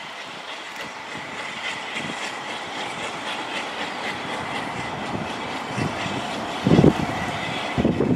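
A train running past on the track, a steady rattle of wheels and carriages, with two heavy low rumbles near the end.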